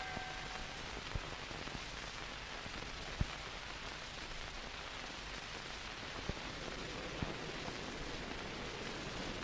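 Steady hiss of an old film soundtrack with a few scattered clicks. The last of a ringing bell fades out at the very start.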